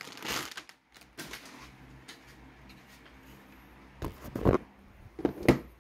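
Handling noise from the graphics card's cardboard box and packaging: a brief rustle, a few light clicks, then clusters of sharp knocks and rustles about four seconds in and again near the end.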